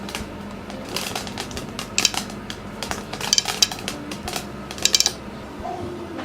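Kitchen utensil clinking and scraping against a bowl, in irregular clusters of sharp clinks.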